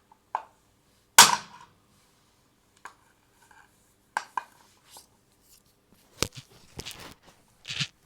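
A few irregular sharp clicks and knocks, the loudest about a second in with a short ring after it.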